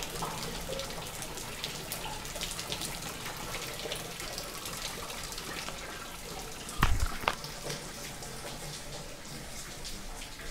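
Floodwater running and dripping steadily inside a building, leaking down from the floor above, with many small drips and splashes. A pair of dull thumps about seven seconds in.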